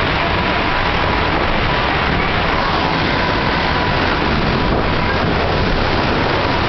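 Steady rushing and splashing of water around a log-flume boat moving along the flume channel.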